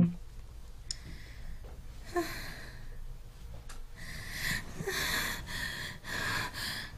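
A woman breathing heavily and sighing in her sleep while she dreams: a single breath about a second in, a couple of longer sighs, then a run of quick, heavy breaths from about four seconds in.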